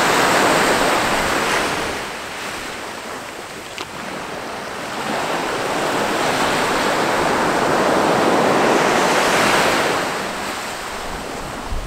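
Small sea waves breaking and washing up a sand-and-shingle beach, swelling loud at the start, easing off, then building again in a longer surge from about halfway to near the end.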